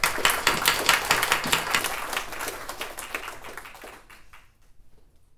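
Audience applauding, a dense patter of hand claps that dies away over the last couple of seconds.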